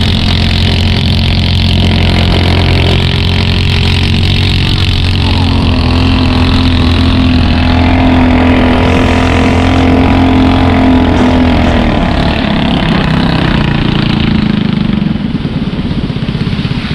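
Engine of a long-tail racing boat running hard with a steady, loud drone. About twelve seconds in, the pitch drops and the sound turns to an uneven, pulsing beat as the engine comes off speed.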